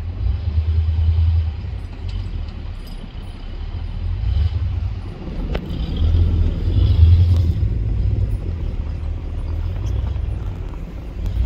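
A 4x4 off-road vehicle crawling over a snowy trail, its engine and drivetrain making a low rumble that swells and eases with the throttle, twice rising louder, with a few faint knocks.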